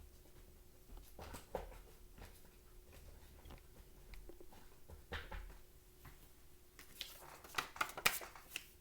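Faint handling noises in a quiet room: scattered soft clicks and rustles over a low steady hum, with a quick run of sharper clicks about seven to eight seconds in.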